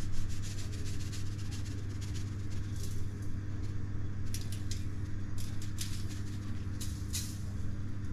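Salt being sprinkled by hand over a raw whole suckling pig on a foil-lined tray: a scatter of brief, soft crackles from about three seconds in, over a steady low hum.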